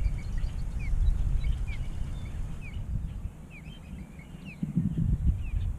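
Small birds chirping in many short, quick falling notes, over a low rumble that fades about three seconds in and swells again briefly near the end.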